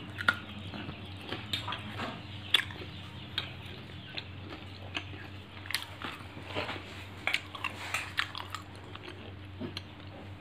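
A person biting into food and chewing it close to the microphone: scattered sharp clicks of chewing, over a steady low hum.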